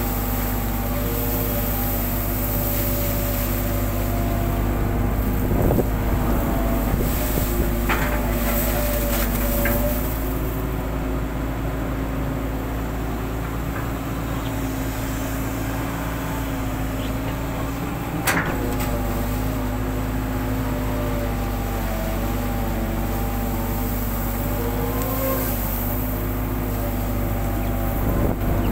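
Hitachi long-reach excavator's diesel engine and hydraulics running steadily under load, heard from the operator's cab, as the long arm works the bucket through the river and lifts it out. A few short knocks, the sharpest about 18 seconds in.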